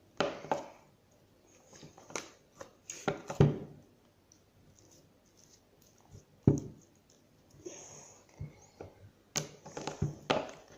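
Scattered sharp knocks and scrapes, one every second or few, from slime being worked and mixed in a container with a utensil.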